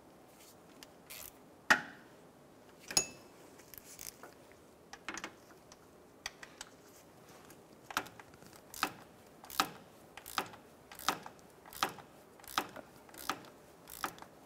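Hand ratchet and socket snugging up a compressor mounting bolt: two sharp metal clinks within the first three seconds, then evenly spaced ratchet clicks about every three-quarters of a second over the last six seconds.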